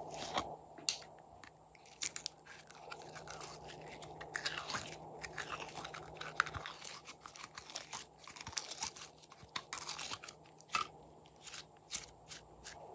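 Glossy blue glitter slime squeezed out of a plastic jar and kneaded by hand, making irregular sticky clicks and crackles.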